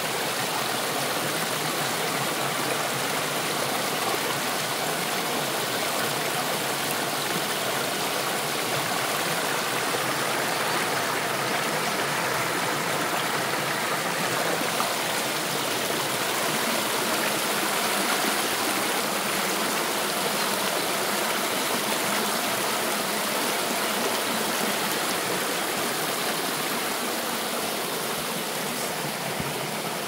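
Mountain stream rushing and splashing over mossy rocks and a small cascade, a steady full rush of water close by.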